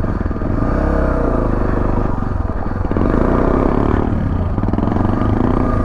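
Dual-sport motorcycle's single-cylinder engine running under way, its pitch rising and falling with the throttle.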